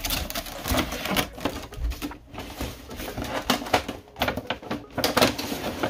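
Cardboard display box with a clear plastic window being handled and turned over: a quick, irregular run of taps, clicks and scrapes of cardboard.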